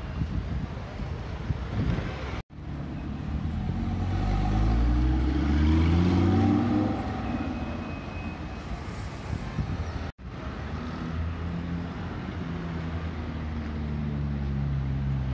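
Street noise, then after a sudden break an Audi R8 pulling away, its engine note climbing as it accelerates and fading as it drives off. After a second break comes a Ferrari 296 GTB's engine running as it turns at low speed, its note rising near the end.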